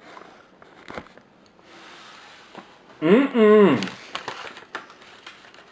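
Soft clicks and small scraping sounds of spoon-feeding, with one loud voiced sound about three seconds in, held for about a second, its pitch rising and then falling.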